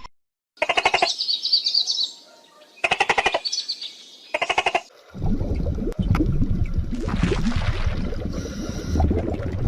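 A bird giving three bouts of fast rattling calls, then a low rumbling noise from about five seconds in.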